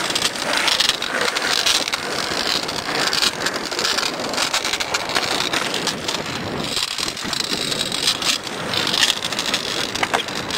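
Skateboard wheels rolling over rough asphalt: a steady gritty rolling noise dotted with small clicks.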